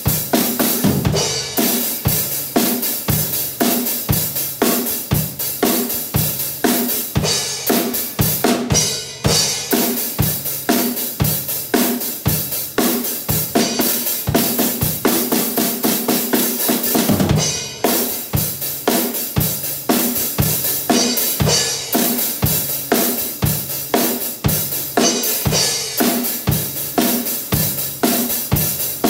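Pearl acoustic drum kit played in a driving rock beat: bass drum, snare and cymbals hit in a regular rhythm. A little past halfway the bass drum drops out for a few seconds, and the passage ends in a loud hit before the beat resumes.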